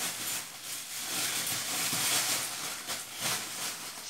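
A hiss that swells about two seconds in and fades near the end.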